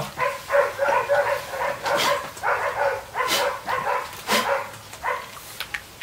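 A dog barking over and over in a quick run, about three barks a second, stopping about five seconds in.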